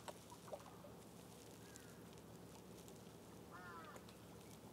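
Near silence with a few faint, distant bird calls, a short cluster of them about three and a half seconds in, and two soft clicks in the first half second.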